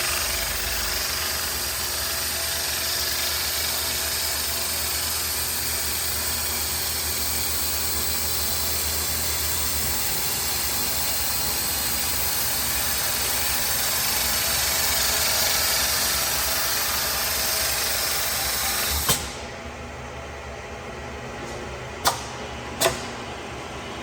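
Riglamaq Ultimate CNC metal spinning lathe running with a steady hissing mechanical noise. The noise cuts off about 19 seconds in, followed by a few sharp clicks.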